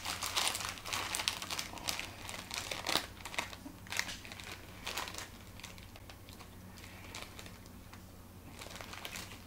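Crinkling of a plastic snack-chip bag being handled and reached into. The crackles come thick and fast for the first few seconds, then grow sparser and quieter.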